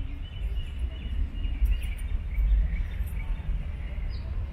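Outdoor ambience: small birds chirping over a low, uneven rumble.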